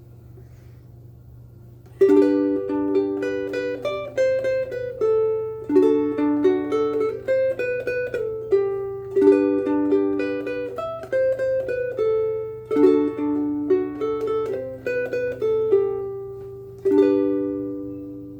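Ko'olau KC-10 ukulele with aNueNue Clearwater strings, played solo: a tune of plucked chords and single melody notes that starts about two seconds in, with a final chord ringing out near the end. A low steady hum sits underneath throughout.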